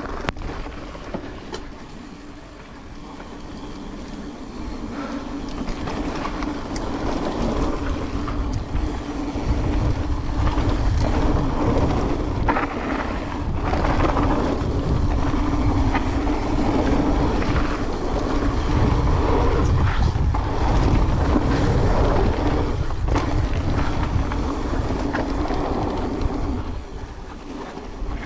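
Mountain bike ride down a dirt trail: wind rushing over the microphone with tyres rolling and the bike rattling, building from about eight seconds in as speed picks up and easing off near the end.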